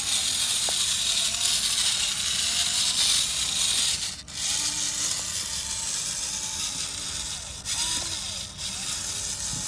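Small electric motor and gearbox of an RC model tractor whirring as it drives, with a brief drop about four seconds in.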